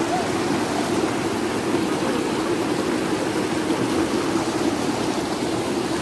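Mountain stream rushing over rocks in a small cascade: a steady, even rush of water.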